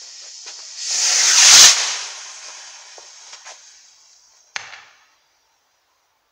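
Firework going off: small fizzing crackles from the burning fuse, then a loud rushing whoosh with a thud about a second in as it launches. The hiss fades over a few seconds, and a single sharp crack follows about three seconds after the launch.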